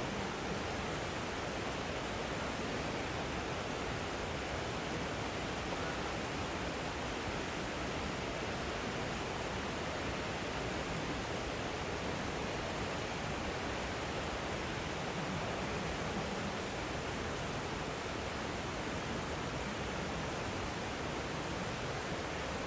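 Rushing water of an Alpine mountain river or waterfall: a steady, even hiss that does not change.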